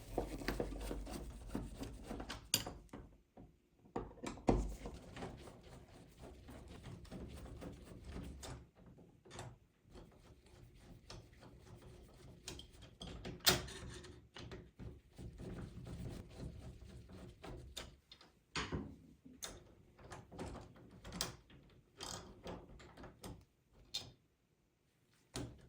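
Screwdriver backing out the two mounting screws of an interior door knob: scattered clicks and small metal knocks from the tool, screws and knob, with one louder knock about halfway through.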